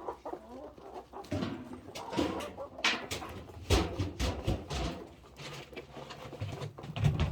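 Chickens clucking softly over scattered sweet feed, with many sharp taps and a few dull thumps among them.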